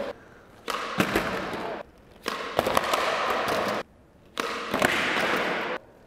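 Skateboard on omni-directional wheels rolling over a concrete floor: a dense, crackling clatter from the wheels' small rollers, with a few sharp knocks. It comes in three stretches of about a second and a half, each starting and stopping abruptly.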